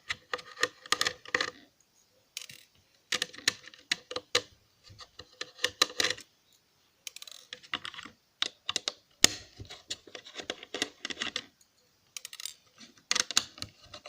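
Small screwdriver working the crosshead screws out of a laptop hard drive's circuit board: bursts of small metallic clicks and taps, with short pauses between them.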